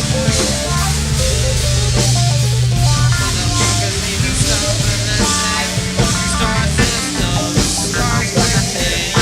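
Rock music with drum kit, guitar and sustained bass notes.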